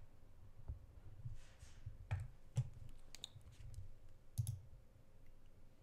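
A computer mouse clicking a handful of times at uneven intervals, with a quick double click about four and a half seconds in.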